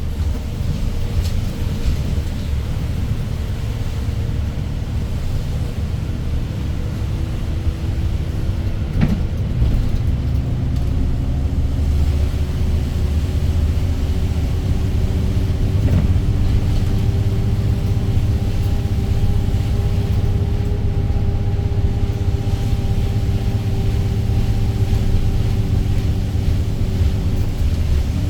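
Daewoo BS090 city bus's GL08P CNG engine running under way, with a steady low rumble of engine and road. About ten seconds in, a whine starts to climb slowly in pitch as the bus picks up speed, then holds level.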